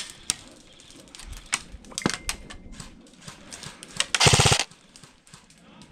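Airsoft gun firing one short, rapid full-auto burst about four seconds in, with scattered single shots popping and clicking before it.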